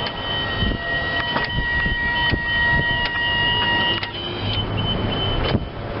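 Kohler 25 HP gas engine of a Hustler zero-turn lawn mower running, with a steady high whine over it that mostly drops out about four seconds in.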